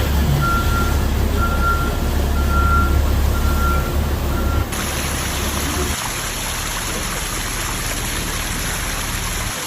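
A heavy vehicle's engine rumbling with its reversing alarm beeping about once a second, five beeps in all. A little under five seconds in, the beeping stops abruptly and a steady hiss takes over.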